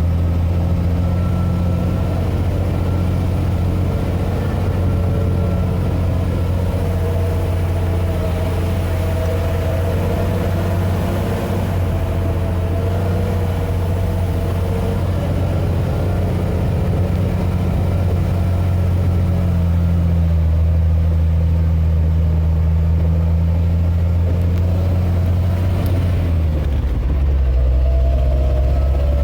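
Scania G 380 truck's inline-six diesel engine running with a steady, deep drone, its pitch stepping down a little near the end.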